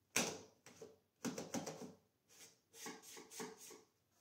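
Light clicks, taps and rubbing from a tape measure being handled and set down on a plywood saw fence, in several short bursts.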